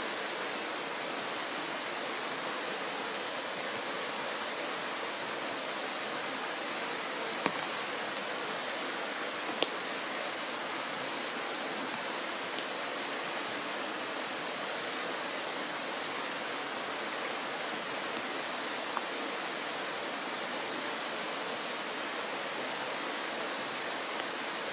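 Shallow mountain stream rushing steadily over a stony bed. A short high chirp repeats about every four seconds, and a few sharp ticks come through.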